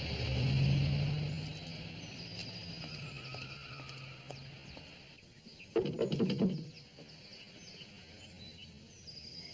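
A car's engine hum swells and then fades away over the first few seconds as a car pulls off, over outdoor ambience with birds chirping. A quick cluster of knocks comes a little before six seconds in, as on a front door.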